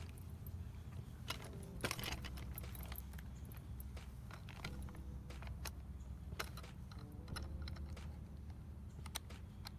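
Scattered clicks and light metallic jangling from buckles, clips and collar hardware as a boxer is strapped into a Walkin' Wheels rear-support dog wheelchair, over a steady low rumble.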